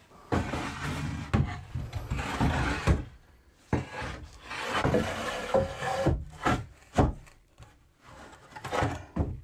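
A cut timber board scraping and rubbing against a wooden shelf frame as it is slid into place for a test fit, with several sharp wooden knocks, the loudest about seven seconds in.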